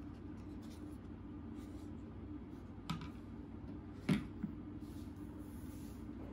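Assembled plastic toy dinosaur set down on a wooden tabletop: two light knocks, the louder just after four seconds in, over a faint steady low hum.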